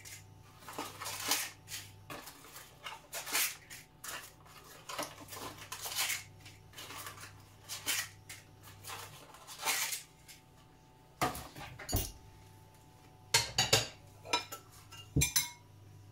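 Irregular clinks and knocks of dishes and pots, a few of them louder near the end, over a faint steady low hum.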